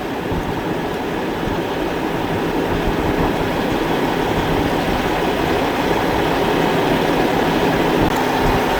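Semi truck's diesel engine running with a steady low drone, slowly getting louder.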